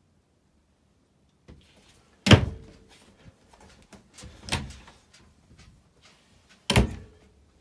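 Three sharp knocks about two seconds apart, the first loudest, as doors or fittings inside a small travel trailer are shut and handled.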